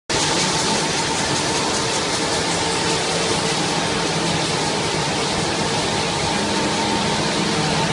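Circular knitting machines running at production speed: a steady mechanical whir with a few constant tones under a high hiss.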